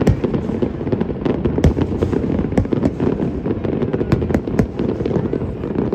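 Fireworks display: dense, continuous booms and sharp cracks several times a second over a constant low rumble.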